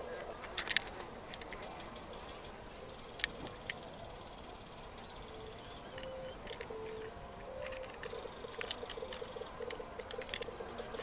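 Pine boards and clamps being handled on a wooden workbench: scattered wooden knocks and clicks as a board is set in place, the sharpest about a second in and about three seconds in. A low, repeated tone sounds in the background and becomes a rapid pulsing in the last few seconds.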